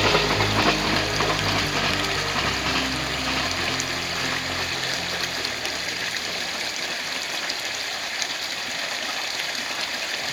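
A passing electric train's motor hum, steady tones that shift pitch in steps, fades away over the first five seconds. It leaves an even rushing noise like running water.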